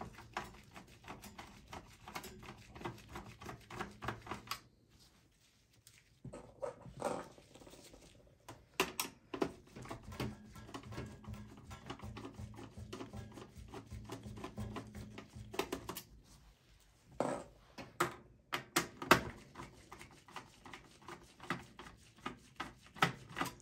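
Screwdriver backing the motherboard screws out of a desktop PC's steel case: a run of light metal clicks and scrapes, with a short quieter pause about five seconds in.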